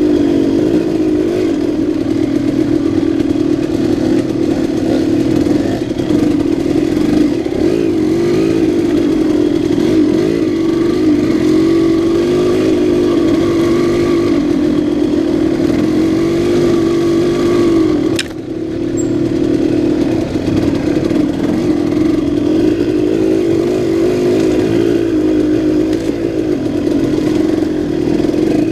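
2006 KTM 200 XC-W's two-stroke single-cylinder engine running under load, its pitch wavering up and down with the throttle. About two-thirds of the way through there is a sharp click and the engine note briefly drops off before picking up again.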